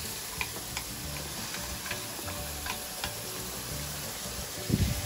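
Minced mutton sizzling as it fries in oil in a pot, with scattered light clicks. A low thump and a louder knock come near the end.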